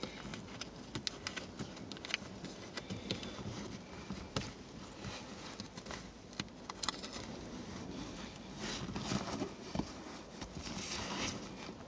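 Hands rustling and scraping under a car's rear seat upholstery, with many small scattered clicks, as a seat heater pad is worked in between the seat cover and the foam.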